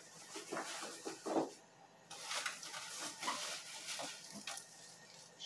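Frozen sacolés (ice pops in plastic bags) rustling and knocking lightly as they are taken from a freezer and packed into an ice-cream cart's cold box, in a string of irregular handling noises.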